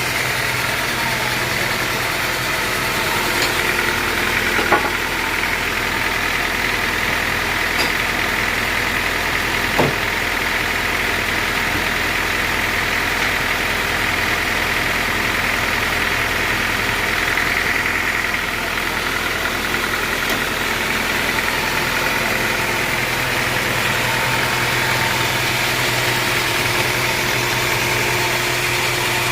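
Sawmill engine running steadily at an even speed, with a couple of short knocks about five and ten seconds in.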